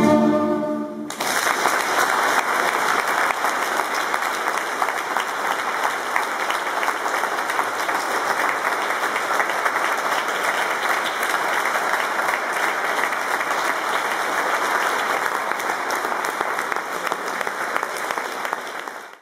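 Music ends on a held chord about a second in, and an audience then applauds steadily. The applause cuts off abruptly at the end.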